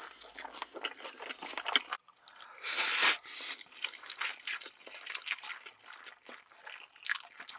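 Close-miked eating: crunchy chewing of fried chicken, then one loud slurp of black bean noodles about three seconds in, followed by wet, sticky chewing and smaller slurps.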